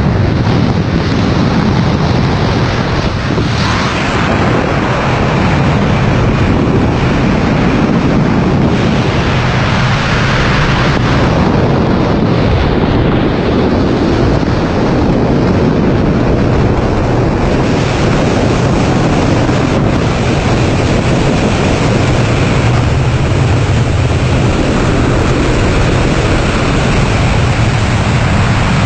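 Loud, steady rushing wind noise buffeting the microphone.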